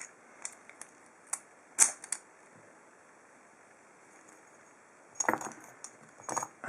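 Sharp metallic clicks and taps from a padlock and its key being handled: about six scattered clicks in the first two seconds, then after a quiet gap two quick rattling clusters near the end.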